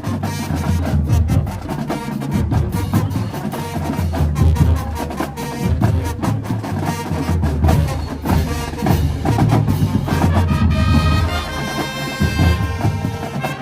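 Marching band playing live: the drumline beats out rapid strokes under sustained low brass notes, and higher held brass notes come in about ten seconds in.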